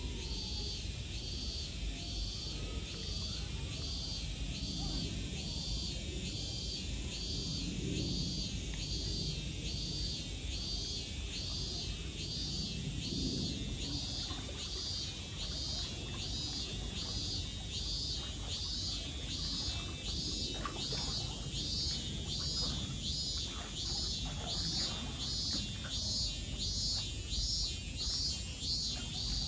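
A cicada singing a long run of high pulsing notes, about one and a half a second, that speed up toward the end, over a steady low rumble of background noise.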